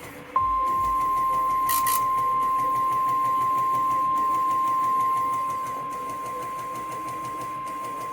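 NOAA Weather Radio's 1050 Hz warning alarm tone: one steady, unbroken beep that signals an urgent weather message is about to be read. It drops in volume about five and a half seconds in, and a short burst of hiss comes about two seconds in.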